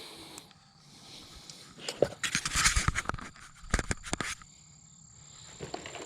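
Fishing gear being handled and packed away: rustling and clattering with a few sharp clicks, mostly between about two and four and a half seconds in.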